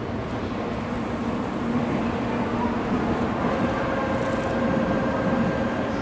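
Steady hum and rumble of an N700-series Shinkansen train standing at the platform, with a few steady tones, growing a little louder about two seconds in.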